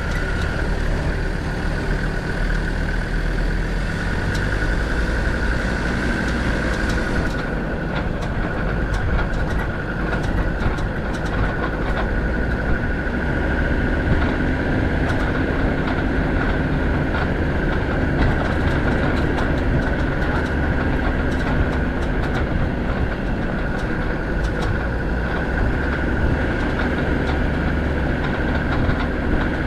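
Land Rover Defender 90 TD5's five-cylinder turbo diesel running steadily as it drives along a rough dirt track, with a steady high-pitched whine and frequent short rattles and knocks.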